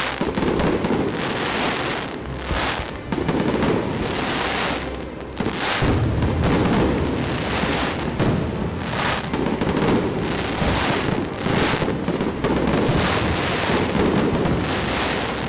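Aerial firework shells bursting one after another in a dense, unbroken barrage of booms and crackles.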